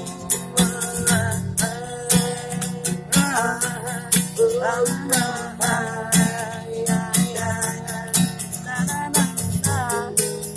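Acoustic guitar strummed in a steady rhythm, with a man's voice singing over it at a few points.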